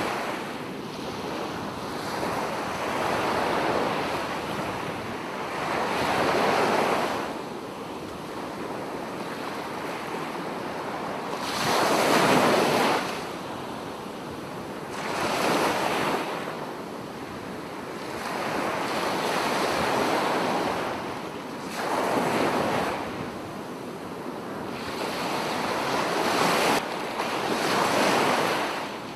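Sea surf breaking on a sandy beach: waves wash in one after another, each a swell of rushing noise every few seconds. Wind blows on the microphone.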